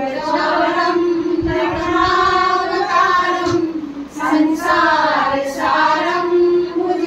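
A group of women singing a devotional bhajan kirtan to the goddess together, in unison, with a short break between phrases about four seconds in.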